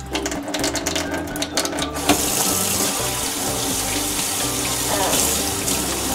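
Water from a kitchen tap pouring into a stainless steel sink and over hands being washed, the steady hiss of water setting in strongly about two seconds in, with background music underneath.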